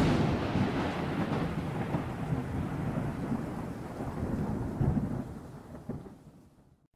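Thunder: a sudden crack at the start, then a long rolling rumble that swells twice and fades away near the end.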